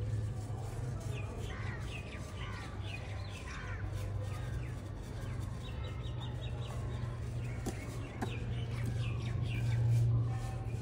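Birds calling in quick runs of short falling chirps, twice, over a steady low hum that grows louder near the end.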